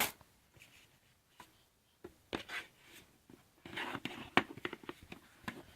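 Hands handling unboxing packaging: a sharp click at the start, then rustling and scraping with several small clicks, busiest in the second half.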